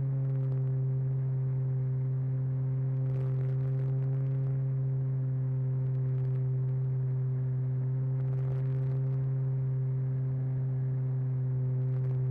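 Model aircraft's motor and propeller droning at a steady, unchanging pitch, heard close up from a camera mounted on the airframe in flight, with a few faint crackles.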